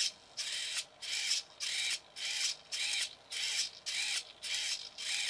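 A small hobby servo steering the toy car's front wheels through a bent paper-clip link, whirring back and forth in short bursts about twice a second. Each burst rises and falls in pitch.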